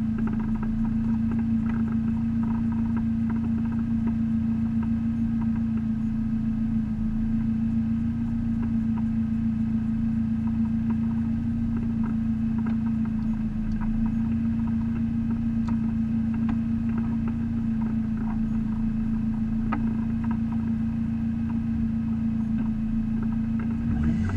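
Neon race car's four-cylinder engine idling steadily at an even, unchanging pitch while the car sits stationary, heard from inside the stripped, caged cabin.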